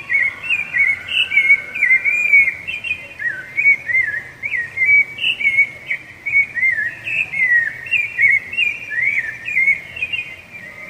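Rufous-bellied thrush (sabiá-laranjeira) singing: an unbroken run of short, clear whistled phrases that rise and fall in pitch, following one another several times a second.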